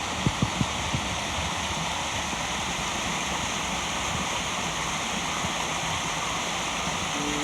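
Waterfall rushing, a steady even roar of falling water, with a few soft knocks within the first second.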